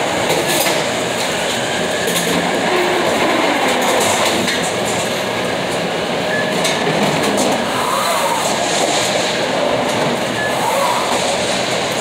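Steady, loud mechanical rumble with rattling clatter and scattered clicks.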